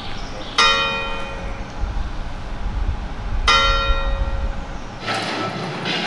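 A church bell tolling, two strokes about three seconds apart, each ringing on and fading slowly. About five seconds in, the sound cuts abruptly to the noisy clatter of an indoor skatepark.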